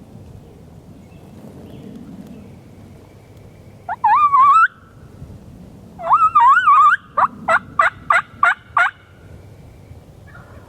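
Wild turkey gobbler gobbling twice, loud and close, the second gobble running straight into a quick run of six short yelping notes.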